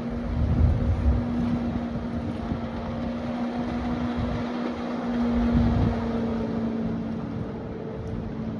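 Motorboat engine running at a steady pitch, with wind gusting on the microphone.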